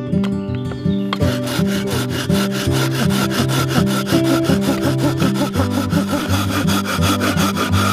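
Small hand saw cutting across a wooden blank in quick, even strokes, several a second, starting about a second in, with acoustic guitar music underneath.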